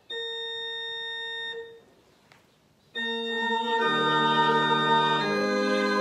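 Organ plays a single held note for about a second and a half. After a short pause it begins sustained chords, with deeper notes joining about a second later and the harmony changing every second or so.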